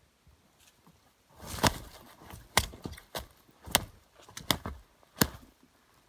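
Knife chopping at mossy forest ground: about five sharp strikes roughly a second apart, starting about a second and a half in, with rustling between them.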